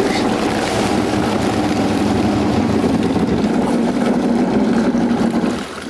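Motorboat engine idling steadily, dropping away sharply near the end.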